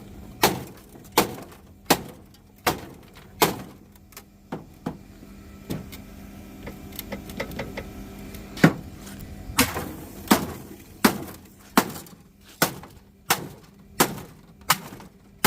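Small hand axe striking the metal of an air conditioning unit, steady blows about every 0.7 s with a pause in the middle, as it chops at the unit to free its radiators. The blows are light, only tapping at the unit rather than breaking it apart.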